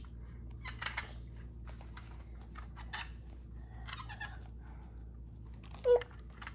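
Scattered light clicks and rattles of small toy cars being handled. Near the end comes one short, loud squeal from a toddler.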